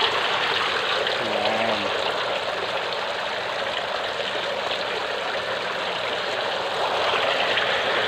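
Thin streams of pumped water falling from overhead pipes and splashing steadily into a concrete fish tank, a recirculating aquaponics flow.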